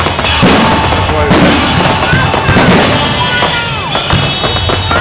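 Aerial firework display: shells bursting in a fast, continuous barrage of bangs and crackling.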